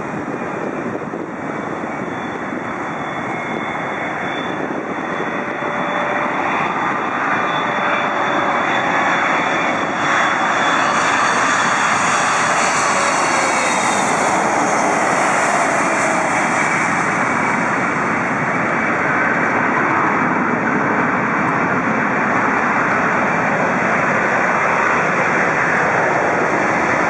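Boeing 777-200LR's GE90 jet engines on final approach, growing louder as the airliner comes close, with high whines that slide down in pitch as it passes. Then a steady, loud rush of engine noise as it lands and rolls out on the runway.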